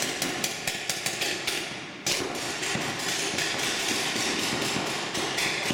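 Paintball markers firing: separate shots about five a second, then from about two seconds in a dense, continuous rattle of rapid fire.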